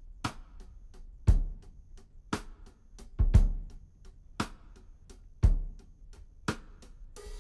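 Background music: a slow drum-kit beat, with bass drum and snare alternating about once a second.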